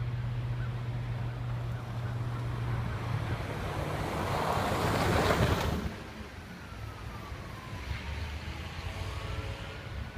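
A vehicle passing on a slushy, snow-covered road: a low engine hum, then tyre hiss on the slush that swells over a couple of seconds and cuts off sharply about six seconds in, leaving a quieter outdoor noise.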